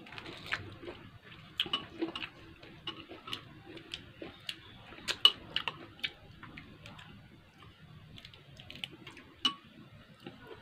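Close-up eating sounds: irregular sharp clicks and smacks from chewing and from handling crisp fried vegetable spring rolls, with the loudest click about five seconds in.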